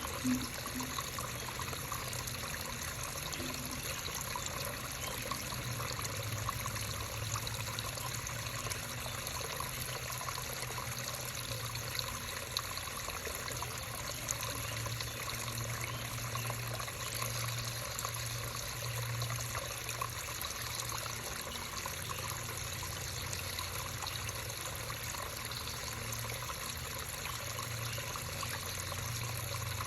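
Creek water trickling and running steadily, an even rushing hiss with a low rumble underneath.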